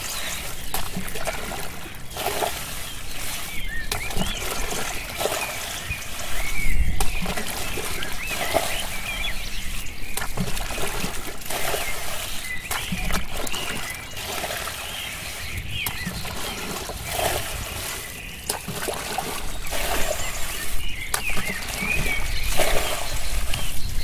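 Muddy water splashing as a plastic bucket is repeatedly scooped through a shallow ditch and its load thrown out, a scoop and throw every second or two: the ditch is being bailed dry.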